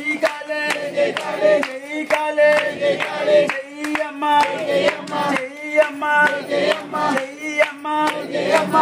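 Group of voices singing a devotional song, with sharp percussive strokes keeping a quick, steady beat throughout.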